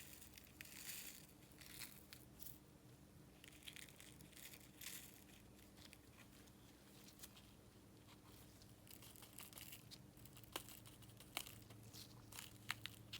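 Faint crinkling and rustling of a small plastic bag of nail glitter being handled and emptied into a pot, with a few light clicks near the end.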